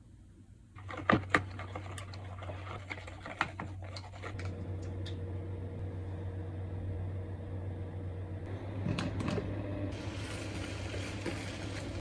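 Kitchen cooking sounds over a steady low hum from the induction hob: a few sharp clicks and knocks of pans and bottles, then from about ten seconds in, diced sausage sizzling in hot oil in a frying pan.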